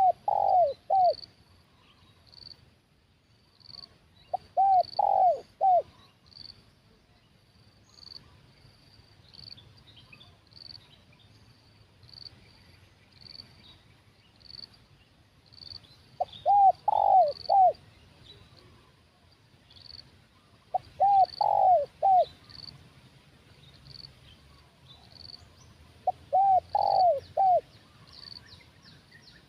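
Spotted dove cooing: five short phrases of about three notes each, several seconds apart. A faint high chirp repeats about once a second behind it.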